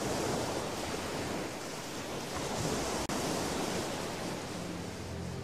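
Sea waves washing, a steady rushing background ambience laid under the picture, with a brief dropout about three seconds in.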